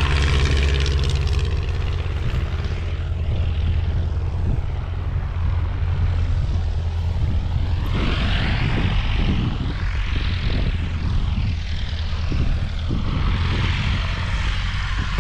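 Light propeller aircraft's engine running steadily, its sound sweeping up and down as the plane moves past in the second half.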